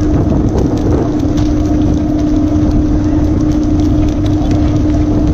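Fishing boat's engine running steadily, a constant hum over a low rumble.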